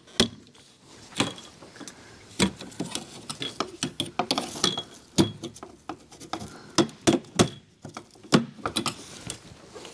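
Small hand tool working under a pickup's chrome windshield molding, prying at the trim clips, with irregular clicks, taps and scrapes.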